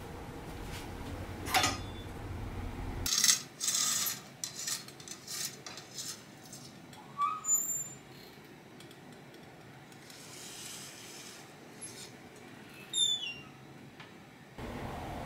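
Light metallic clinks, knocks and scrapes as a bowl on a metal trivet is handled with a long kiln fork and slid into an electric enamelling kiln, with a couple of short metal-on-metal squeaks, the last one about thirteen seconds in.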